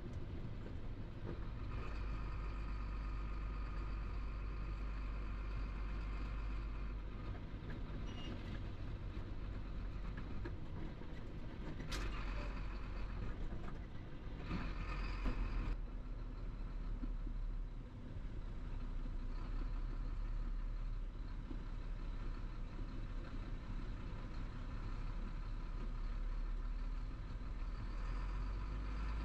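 Chenglong heavy truck's diesel engine running steadily with road noise, heard from inside the cab while driving, with one sharp click about twelve seconds in.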